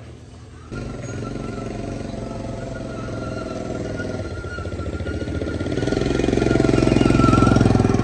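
The repaired small engine catches about a second in and runs with a fast, even firing beat. It grows louder toward the end as it is revved up.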